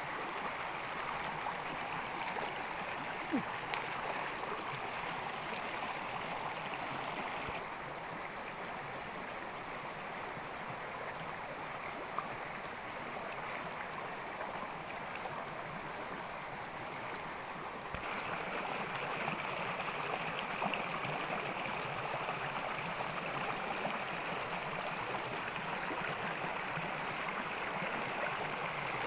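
Steady rushing of flowing stream water, with sudden small changes in level about eight and eighteen seconds in, and a few faint clicks.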